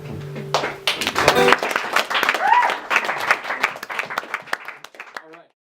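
A final acoustic guitar chord rings out while an audience starts applauding. The clapping goes on for a few seconds, with a brief shout near the middle, and dies away before the recording cuts off.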